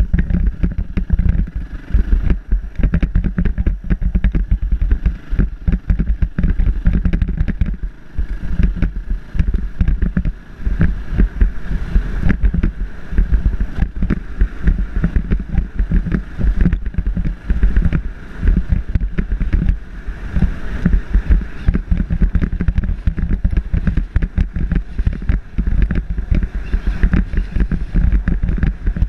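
Trail motorcycle riding along a bumpy dirt track, its engine running under heavy wind buffeting on the microphone.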